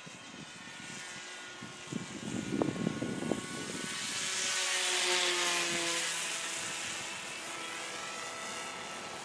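Bixler 2 RC plane's electric pusher motor and propeller whining as it flies past. The sound swells in the middle and the pitch falls as it passes.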